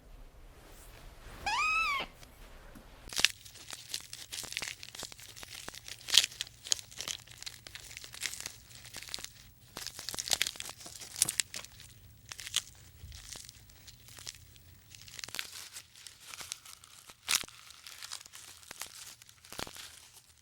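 An animal gives a single call that rises and falls, about a second and a half in. Then comes a long run of irregular crackling and crunching clicks.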